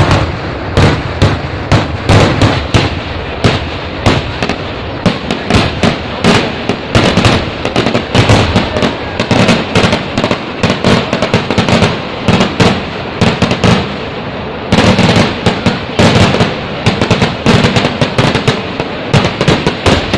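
Kerala temple-festival fireworks (vedikkettu) going off in a rapid, unbroken barrage of explosive blasts and crackles, many per second. The barrage thickens about three quarters of the way in.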